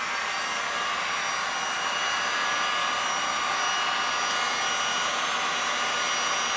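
Electric heat gun running steadily, its fan blowing hot air over wet epoxy resin with a steady rush and a faint whine.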